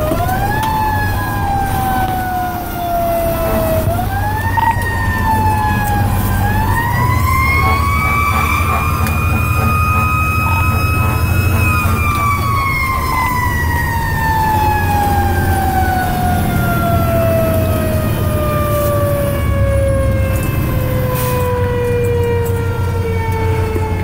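Fire engine siren heard from inside the cab, wailing: it rises three times in the first seven seconds, holds at its highest pitch for a few seconds, then falls slowly and steadily. The truck's engine rumbles underneath.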